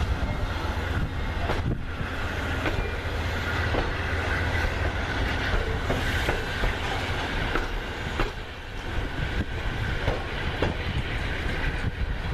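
Amtrak passenger train rolling by, its wheels clicking over rail joints every second or so above a steady low rumble.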